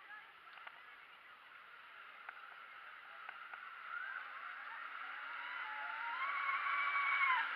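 Battery-powered RC model speedboats running on the water, their motor whine growing louder as they come nearer; about six seconds in the whine rises in pitch, then drops just before the end.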